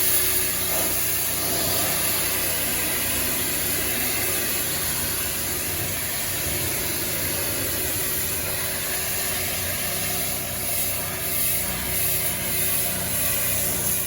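DeWalt 3.5 GPM pressure washer's engine running steadily under the hiss of the water spray during a fresh-water rinse.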